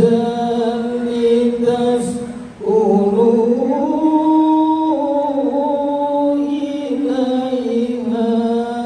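A single voice reciting the Quran in the melodic tilawah style, in long held, ornamented notes. The phrase breaks about two and a half seconds in, then the next phrase climbs in pitch, holds, and slides back down.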